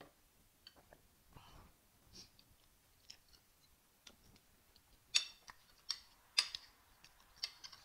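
Soft chewing and mouth sounds of eating rice and beans, then a metal spoon clinking and scraping against the plate several times in the second half, the sharp clinks being the loudest sounds.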